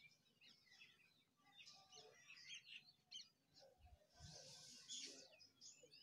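Faint chirping and tweeting of small birds: many short, quick calls. Two low, soft thumps come about four seconds in, followed by a brief hiss.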